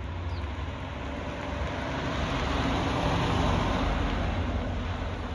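A 1969 Opel Commodore A coupe's straight-six engine as the car drives past, its sound swelling to a peak about three seconds in and then fading away.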